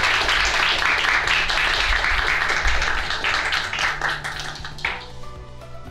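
Small audience applauding, dying away about five seconds in as soft background music with steady held notes comes in.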